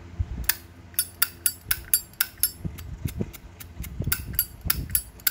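A Zippo lighter worked by hand: a rapid run of sharp metallic clicks, about four a second, from its lid snapping open and shut and its flint wheel being struck. The clean, crisp action the seller praises as a good sound and a sharp wheel.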